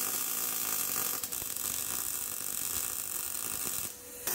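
Electric welding arc crackling steadily as 1/8-inch steel flat bar is welded overhead, with a brief break about a second in. It stops near the end.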